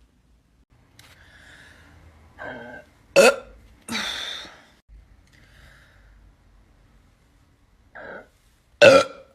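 A woman burping several times in short separate bursts, the loudest about three seconds in and just before the end.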